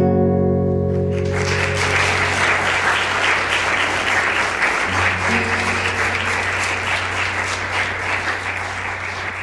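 The last acoustic guitar chord rings out, and about a second in an audience breaks into applause. A low note holds underneath the clapping.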